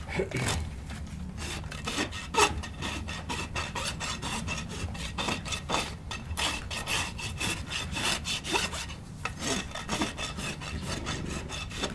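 Steel hoof rasp filing a horse's hoof, repeated scraping strokes a few a second with a brief pause about nine seconds in, evening up the hoof wall during a barefoot trim.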